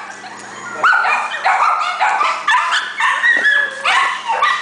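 Many dogs barking and yipping at once: a crowd of kennelled dogs giving overlapping high barks about two to three times a second, starting about a second in.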